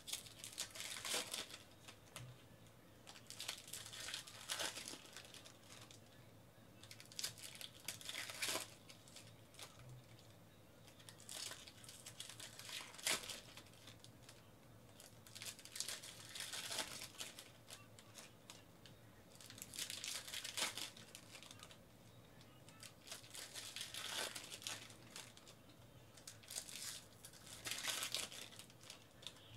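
Foil wrappers of 2018 Bowman baseball card packs crinkling and tearing as they are ripped open by hand, in repeated bursts every few seconds.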